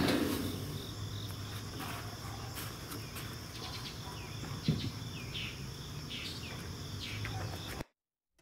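Steady high-pitched chorus of insects, with a couple of knocks, the loudest right at the start and a smaller one about halfway through; the sound cuts off suddenly near the end.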